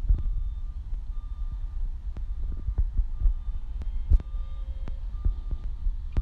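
Front-loader garbage truck's backup alarm beeping, short steady-pitched beeps about a second apart, over the low rumble of its diesel engine, with a few sharp clicks.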